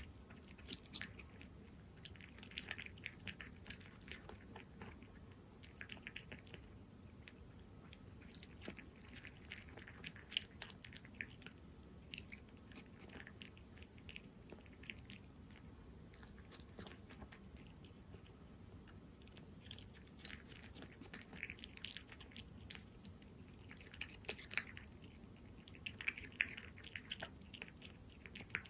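A cat chewing wet cat food in jelly: quick, small, moist clicks and smacks coming in bursts of a few seconds, with short pauses between mouthfuls.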